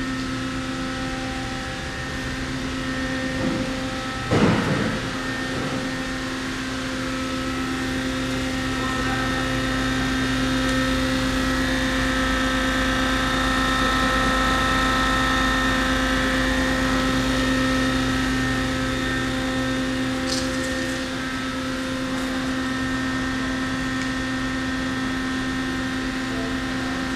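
Miyano LM-11 CNC lathe running: a steady machine hum made of several fixed tones. A brief loud burst comes about four and a half seconds in.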